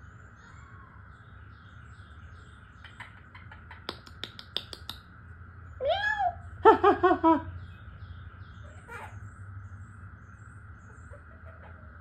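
Quaker parrot calling: one drawn-out call that rises and falls, then a quick run of four or five short chattering notes. A run of sharp clicks comes a second or two before the calls.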